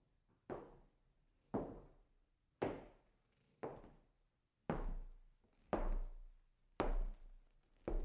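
Slow footsteps on a wooden floor, hard soles clacking about once a second, sounding distant. There are eight steps, and the last four are louder with a heavier thud.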